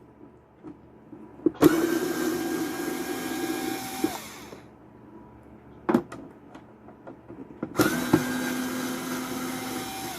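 Cordless power drill/driver running in two bursts of about two and a half seconds each, a steady motor and gearbox whine, backing out two screws from a Keurig coffee maker's housing. A sharp click or knock falls between the two runs.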